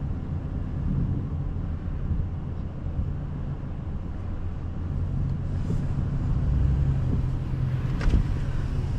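A car engine running with a steady low hum, getting a little louder in the second half, and one sharp click a little after eight seconds in.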